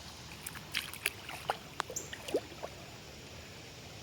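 Shallow water splashing and sloshing in short, irregular bursts over a steady background of running water. The splashing dies away about two and a half seconds in.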